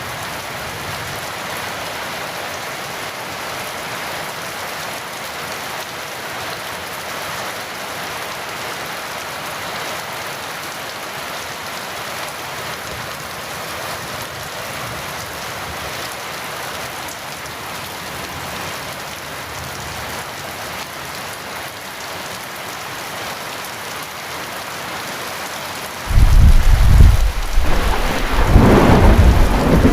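Heavy rain falling steadily on a surface. About 26 seconds in, a loud, deep rumble of thunder breaks in and goes on rolling.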